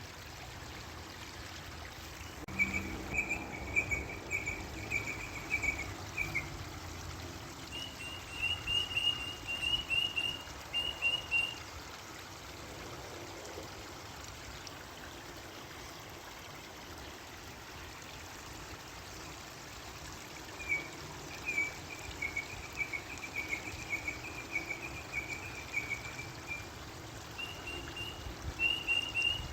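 A bird singing in long runs of quick, repeated chirping notes, four runs with pauses between them, over a steady background of running water.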